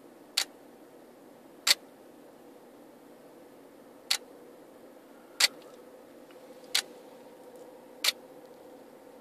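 A camera shutter clicking six times at uneven gaps of one to two and a half seconds, each click set off by a lightning trigger on the camera.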